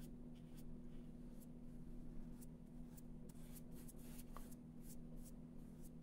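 Faint, scattered scratches and taps of a paintbrush laying acrylic gouache onto paper, over a steady low hum.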